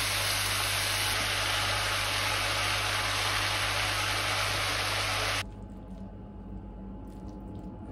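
Cabbage and mushrooms sizzling as they stir-fry in a nonstick frying pan, a steady hiss that cuts off suddenly about five seconds in. After it, a much quieter low hum.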